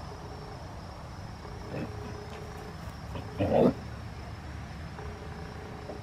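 Basset hound giving one short, loud bark about three and a half seconds in, over the steady chirring of insects.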